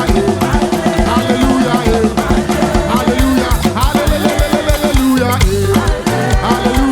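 Upbeat gospel praise music with a drum kit keeping a steady beat under a heavy bass line.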